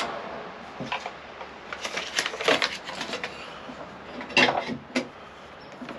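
Scattered knocks, clicks and rustling of wiring and small parts being handled on a boat's deck, with the loudest knock about four and a half seconds in.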